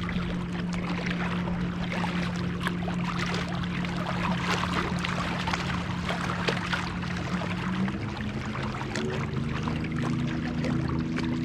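A motorboat engine running steadily on the lake, its hum stepping up in pitch about eight seconds in, over water splashing and lapping at the shore.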